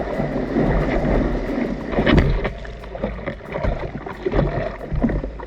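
Sea water splashing and sloshing close to the microphone in irregular surges, with a low wind rumble on the microphone.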